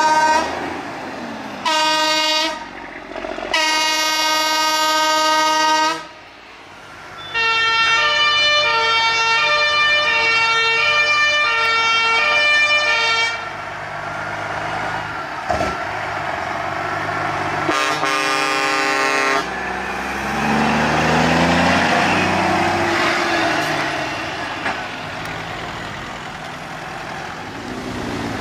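Semi-truck air horns blowing several long chord blasts, then a musical horn playing a short tune of alternating notes for about six seconds. One more horn blast follows, then a straight-piped truck diesel engine pulling past, its pitch rising and falling through the gears.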